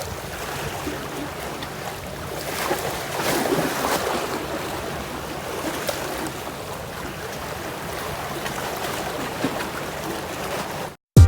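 Sea waves washing against the shore and wind buffeting the microphone, swelling louder for a moment a few seconds in. Cuts off suddenly near the end.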